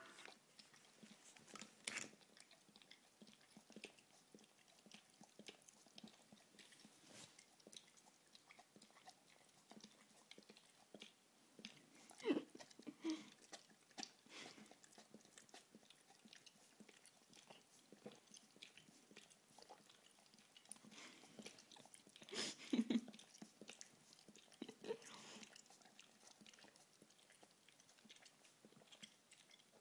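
Weimaraner licking and chewing at toffee stuck to its teeth: a run of soft, wet mouth clicks and lip smacks, with a few louder smacks in two clusters partway through.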